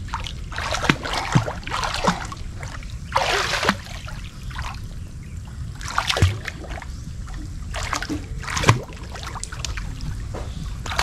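River water splashing and sloshing as a child paddles with her arms, in irregular bursts every second or two over a steady low rumble.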